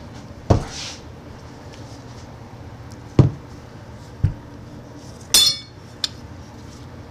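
Steel lathe spindle and its bull gear handled on a workbench: four sharp metallic knocks spread over several seconds. The fourth, about five seconds in, clinks with a brief high ring, and a light click follows.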